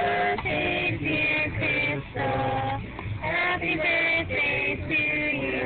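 Women's voices singing a song in held notes, with short breaks between the notes.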